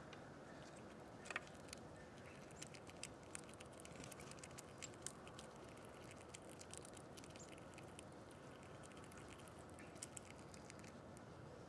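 Faint irregular ticks and light scratching from a small animal feeding, over a steady low hiss; one sharper tick about a second in.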